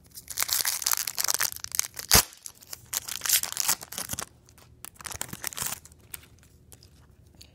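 A foil trading-card pack wrapper of 1999 Donruss football being crinkled and torn open, with one sharp crack about two seconds in. Fainter rustling follows until about six seconds in.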